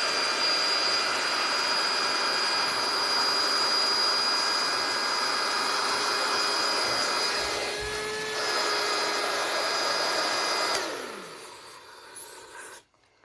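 Electric balloon pump running steadily with a whine as it blows up a latex balloon. It switches off about eleven seconds in, its motor winding down with a falling tone, followed by faint handling of the balloon.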